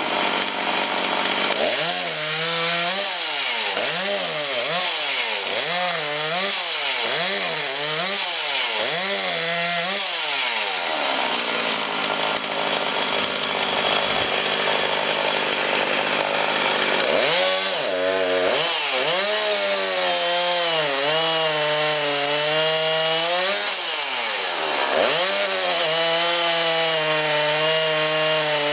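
Two-stroke chainsaw cutting firewood, its engine pitch dipping and recovering about once a second as the chain bites into the wood, with a steadier stretch in the middle.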